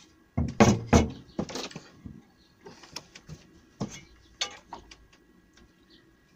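Wooden board set down on a metal saw table with a few hard knocks, followed by quieter taps and clicks as a wooden-stocked steel try square is picked up and laid against clamped beech boards. The loudest knocks come in the first second.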